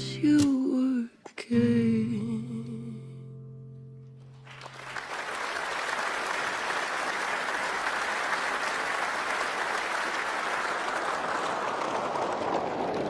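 Slowed-down pop song ending: a last sung word and a held, wavering sung note that dies away, then from about four seconds in a steady hiss of slowed audience applause with no music under it.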